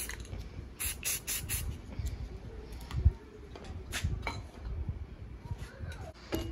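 Aerosol spray paint can hissing in several short bursts, with a quick run of them about a second in. A low thump about three seconds in, with another near four seconds.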